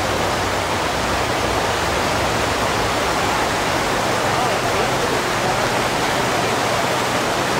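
Whitewater river rapids rushing steadily, an even wash of water noise with no breaks.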